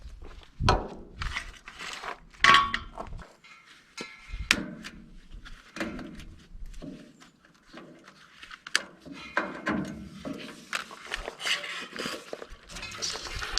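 Irregular knocks, thunks and clicks of hard objects being handled and set down, spread unevenly through the stretch.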